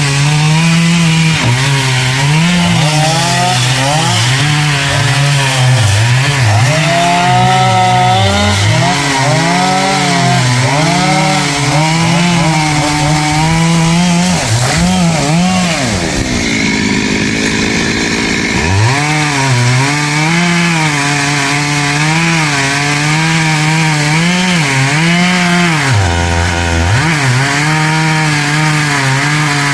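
Chainsaw cutting a tamarind tree, its engine note wavering as the chain loads in the wood. About halfway through the engine falls away to a lower note for a few seconds, then revs back up and cuts on.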